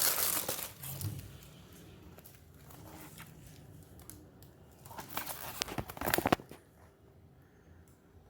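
Crinkling and rustling of a firework shell's wrapping being handled and turned over: a burst at the start, quieter handling, then another spell of crackly rustling about five seconds in.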